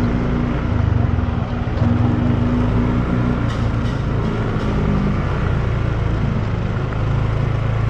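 Motor scooter engine running steadily during a ride, with road noise. Its higher tone fades out about three seconds in.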